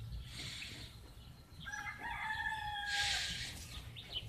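A rooster crowing once: a single drawn-out call of about a second and a half, starting a little under halfway in.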